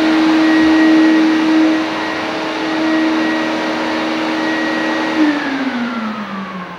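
Canister wet/dry shop vacuum running with a steady motor whine, then switched off about five seconds in, its pitch falling as the motor winds down.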